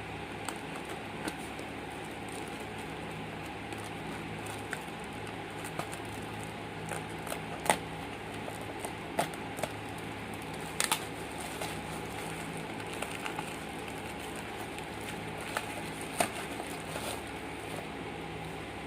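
A parcel being unwrapped by hand: scattered crinkles, crackles and sharp clicks of packaging being handled and torn open, over a steady fan-like hum.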